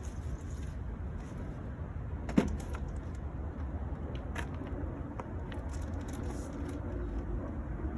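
A few sharp plastic clicks and ticks from the car's grilles and their clips being handled, the loudest about two and a half seconds in, over a steady low rumble.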